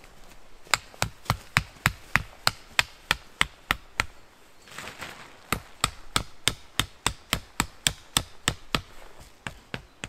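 Repeated hammer blows driving a stake into the ground to peg down a tarp shelter, at about three strikes a second. They come in two runs with a short pause between, then two last taps near the end.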